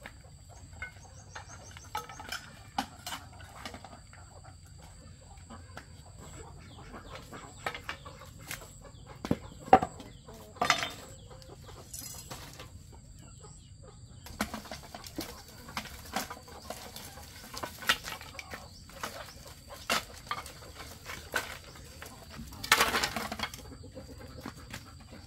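Dry split-bamboo offcuts being picked up and tossed onto a pile: scattered knocks and clatters of bamboo pieces, two louder knocks about ten seconds in, and a longer clatter near the end as an armful lands on the pile.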